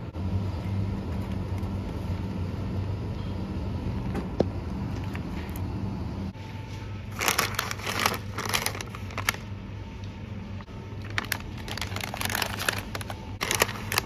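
Plastic candy pouches crinkling as a hand picks them up and handles them on a supermarket shelf, in several bursts from about seven seconds in. Before that, a steady low hum by a refrigerated display shelf.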